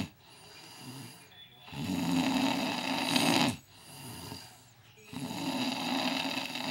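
A man snoring in his sleep, untreated by CPAP: two loud snores about a second and a half to two seconds each, with a quieter breath out between them.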